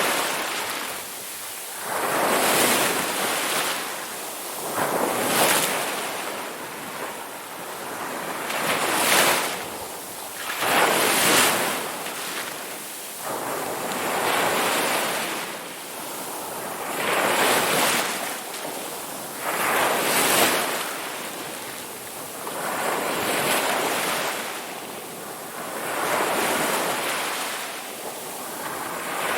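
Ocean waves breaking on a shore, a hissing surf that swells and falls again every two to three seconds, with some wind noise.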